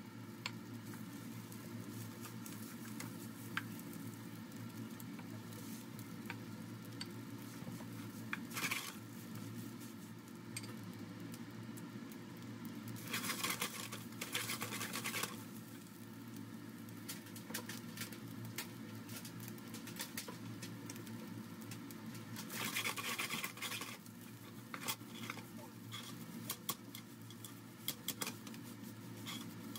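Wooden spatula stirring and scraping rice with diced Spam in a nonstick frying pan, with light sizzling and a steady low hum underneath. The stirring gets louder for a few seconds twice, about a third of the way in and again about three quarters of the way through.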